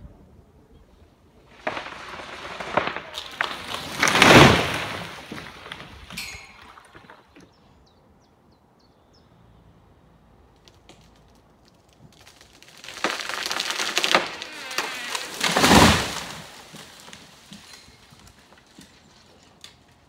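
A felled lime tree crashing down, twice: each time a rush of breaking, swishing branches builds for a couple of seconds and ends in a heavy thud as the wood hits the ground. The first thud comes about four seconds in, the second about sixteen seconds in.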